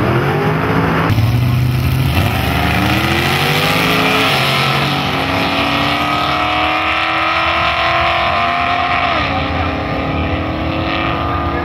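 Two vintage gasser drag cars accelerating hard side by side down the strip. Their engine notes climb steeply in pitch, drop at an upshift about four seconds in and again about nine seconds in, then climb again.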